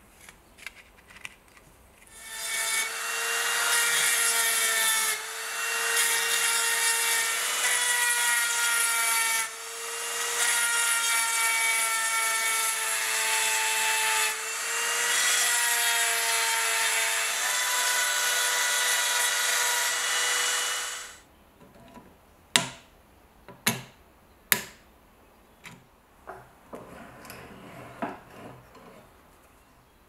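Handheld rotary tool spinning a small diamond burr against the steel end of an old Swiss Army knife: a steady high whine with grinding hiss, briefly easing off three times and stopping about 21 seconds in. A few sharp clicks and light scraping follow.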